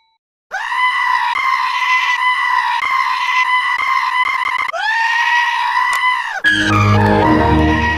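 Screaming goat meme sound effect: two long, high, steady goat screams, the first about four seconds long and the second shorter. About six and a half seconds in they give way to a burst of music with a deep bass.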